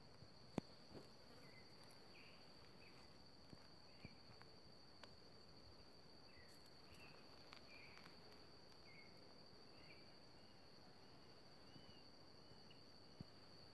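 Faint, steady high-pitched insect trill, with scattered short soft chirps and a few small clicks, the sharpest about half a second in.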